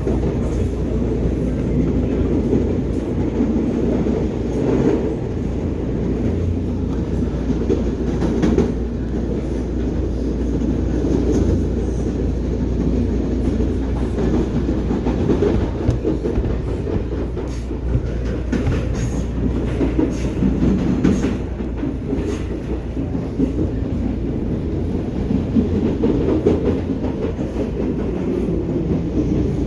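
Commuter train running along the track: a steady rumble with occasional clicks of the wheels over rail joints.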